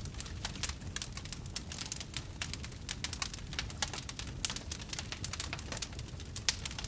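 Wood campfire burning, with many quick irregular crackles and pops over a low steady rumble of the flames.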